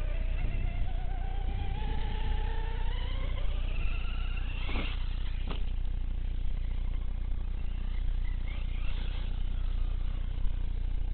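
Electric motor whine of a 1/6-scale Redcat Shredder RC truggy, rising in pitch as it speeds up over the first few seconds, with a sudden sweep in pitch and a sharp click about five seconds in and fainter whining later, over a steady low rumble.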